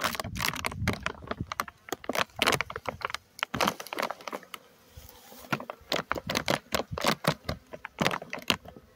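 Plastic sheeting crinkling and crackling as it is peeled back off a beehive, a quick run of sharp crackles with a quieter spell about halfway through.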